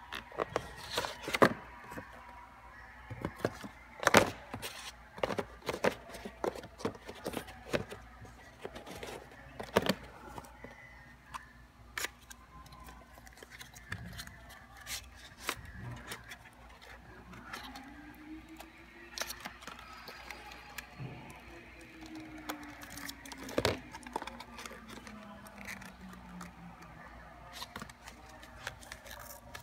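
Hands handling a cardboard electronics box: inserts and paper sleeves lifted out and a charger cable drawn from its compartment, with many scattered sharp taps, clicks and scrapes.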